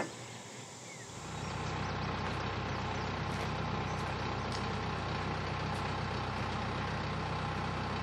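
Pickup truck engine idling steadily. It comes in about a second in and holds an even hum.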